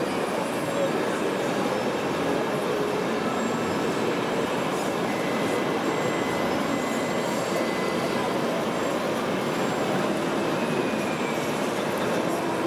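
Steady rumbling din of a busy indoor RC model show hall, with a faint thin high whine for a few seconds in the middle.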